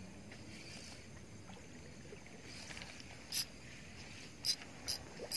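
A hooked catfish thrashing at the pond surface on a fishing line: a few short, sharp splashes about three and a half, four and a half and five seconds in, over a faint outdoor background.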